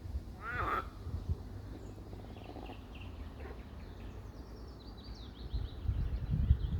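Wild birds calling: a harsh call with a clear pitch about half a second in, then a run of quick, high chirps near the end. A steady low rumble lies under them and grows louder near the end.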